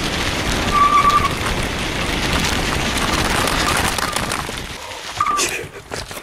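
Wind rushing over the microphone and tyres rolling on a dirt road during a fast downhill ride, a steady rushing noise with two brief high squeaks, about a second in and again about five seconds in. The rush fades away about five seconds in, with a few knocks near the end.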